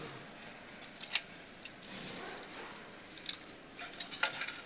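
A handful of faint, sharp clicks and light knocks over low background noise, the sharpest a little after a second in.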